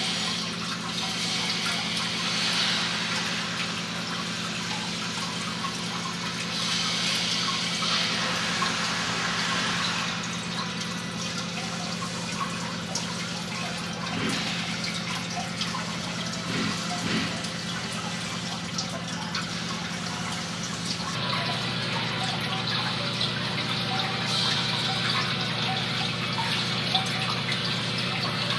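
Water falling and splashing steadily down a custom water wall fountain.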